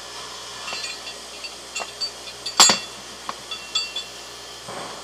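Metal rigging hardware, a shackle and hook, clinking as it is handled against the block and bench: a series of light, ringing metallic clinks, the loudest about two and a half seconds in.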